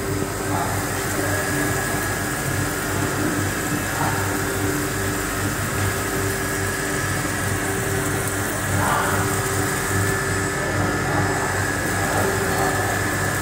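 Wire-cut EDM machine running as it cuts a steel mould plate: a steady mechanical hum with a low pulsing under it. The hum's tones break off briefly about every four seconds.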